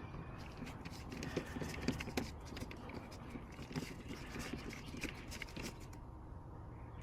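Faint, irregular small clicks and scrapes of hand work on the door handle's plastic mounting, as small screws are fitted and screwed in.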